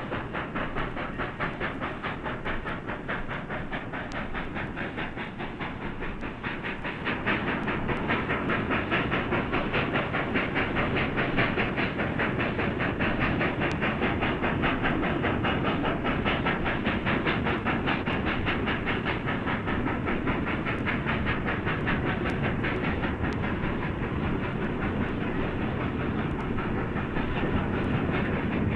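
Steam locomotive running at speed: rapid, even exhaust beats mixed with the clatter of wheels on rail joints, growing louder about seven seconds in.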